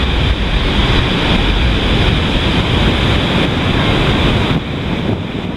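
Pacific Ocean surf breaking and washing up the beach, with strong wind buffeting the microphone in a heavy low rumble that eases slightly near the end.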